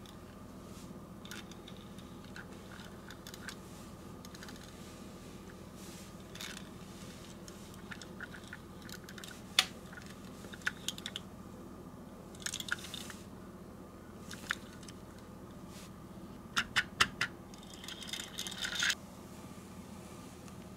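Hands handling small diecast toy cars and their cardboard boxes: scattered light taps and clicks, with four quick sharp clicks about two-thirds through and a brief rustle of packaging after them, over a steady low hum.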